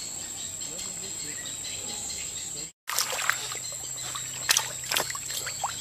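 Swamp ambience with a steady high-pitched insect drone. The sound drops out for an instant about halfway through, and after that a few sharp knocks stand out.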